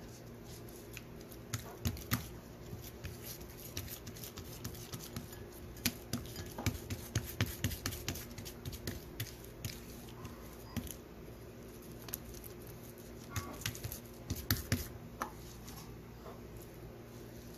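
Fingertips pressing and spreading rice-flour and rava dough over a banana leaf: scattered small taps and leaf crackles in uneven clusters, over a low steady hum.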